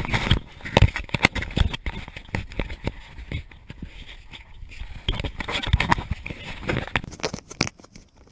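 Handling noise from a handheld camera being passed between hands: irregular knocks and rubbing of fingers against the housing and microphone, mixed with footsteps crunching on loose gravel and dry grass.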